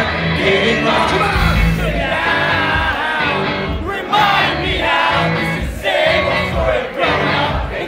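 Live ska-punk band playing a song loud, with singing and the crowd singing along.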